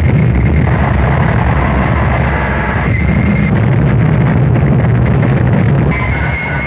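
Harsh noise music: a loud, dense wall of distorted noise over a heavy low rumble. A thin high whine comes in about three seconds in and again near the end.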